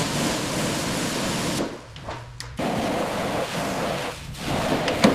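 Hiss of a high-pressure blast nozzle, triggered in three long bursts with short breaks between them, stripping corrosion from a car hood.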